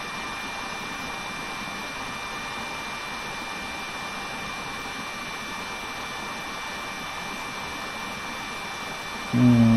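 Steady fan-like background noise with a thin, high, constant whine. Near the end a short voiced "hmm" cuts in briefly.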